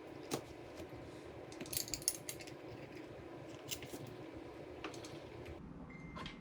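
Light metallic clicks and taps from small metal parts of a KitchenAid stand mixer's gear assembly being handled during disassembly, with a short cluster of clicks about two seconds in.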